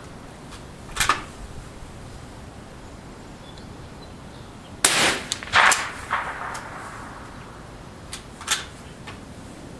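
Mossberg 46M bolt-action .22 LR rifle firing during a timed string, with the bolt worked between shots: several sharp cracks and metallic clacks, the loudest near the middle, others about a second in and near the end.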